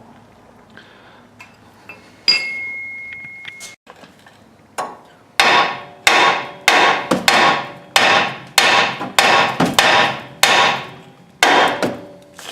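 Hammer blows on steel, knocking a worn outer tie rod end loose from the steering knuckle. One ringing strike comes about two seconds in, then a steady run of about a dozen blows, roughly two a second.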